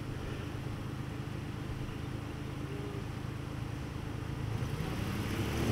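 Ford F-150 pickup engines running under load as one truck pulls on a tow rope to drag the other out of soft sand; the engine noise swells near the end.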